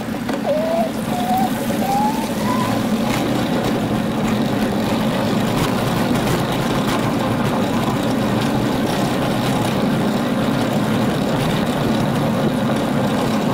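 Steady rumble of a bicycle being ridden along a paved path, tyre and wind noise, with a few short rising whistles in the first three seconds.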